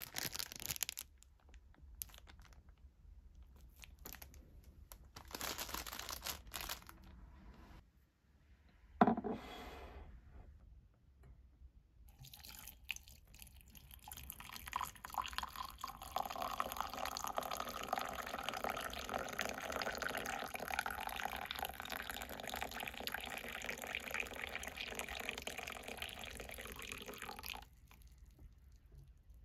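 Water poured in a steady stream into a ceramic mug over a tea bag, starting about twelve seconds in and lasting about fifteen seconds before it stops. Earlier there is one sharp knock, the loudest sound, about nine seconds in, among a few quieter short noises.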